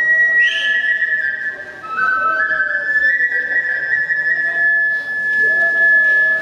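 Kagura flute, a Japanese bamboo transverse flute, playing long high held notes that step down and then climb back up, over a quieter wavering lower tone.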